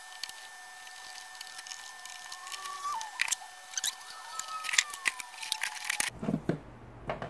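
Hard plastic clicks and knocks as a shop vac's motor head is screwed together and its plastic housing handled, with a few faint squeaks of plastic rubbing on plastic. A faint steady whine in the background stops about six seconds in.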